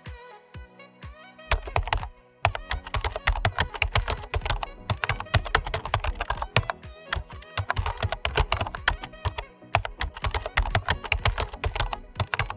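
Background music with a dense run of rapid, sharp clicks and low thumps starting about a second and a half in.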